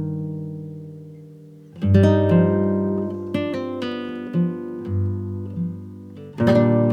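Background music on acoustic guitar: strummed chords that ring and fade, a new chord about two seconds in and another near the end, with single plucked notes between them.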